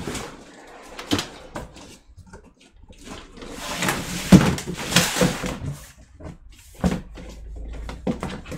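Rummaging through stored things: scattered knocks and clicks, with a louder stretch of rustling and clattering in the middle.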